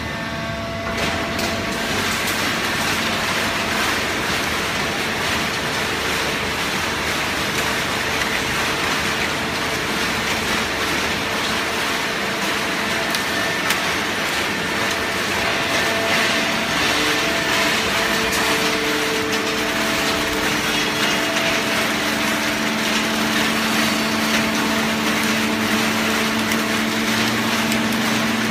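Hydraulic baling press running, pressing waste newspaper: a steady machine hum of several tones over a dense, continuous rustling noise, growing a little louder and shifting in pitch about sixteen seconds in.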